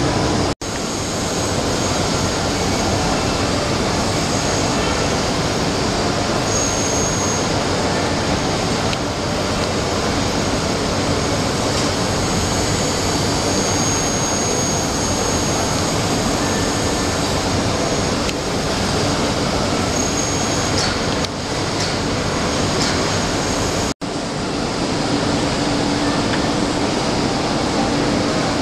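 CNC machine running: a loud, steady mechanical noise with a faint hum and a high whine, cutting out for an instant about half a second in and again near the end.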